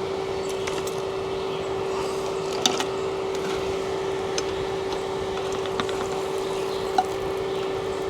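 Electric fan running with a steady hum, with a few light clicks, likely cooking utensils, about a third of the way in and near the end.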